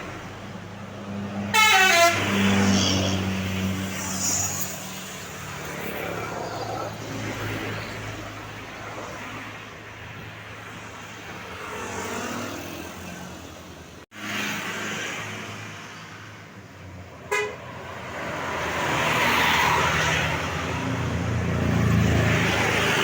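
Tourist buses running in a convoy and sounding 'telolet' musical Basuri horns. The loudest horn sounds about two seconds in, sweeping down in pitch. A short, loud sound comes about seventeen seconds in, over the steady hum of the bus engines.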